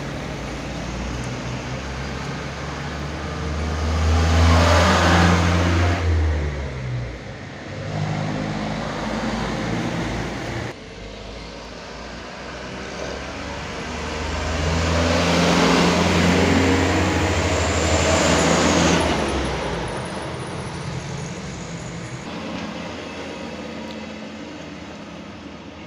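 Trucks driving through a sharp bend, engines passing close twice, each swelling loud and then fading, with a low engine drone that steps in pitch as the drivers work the engines through the curve.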